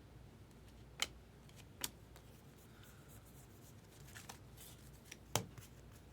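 Baseball trading cards being handled and flipped through by hand: a few sharp snaps of card stock, the loudest near the end, with soft rustling between.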